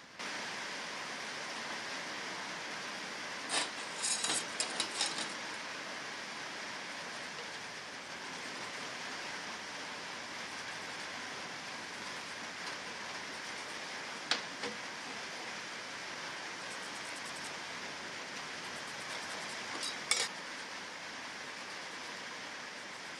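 Steady rushing workshop noise with light metal clinks and taps of small tools being handled on a steel workbench. There is a quick flurry of clinks about four seconds in, then single ones near the middle and about twenty seconds in.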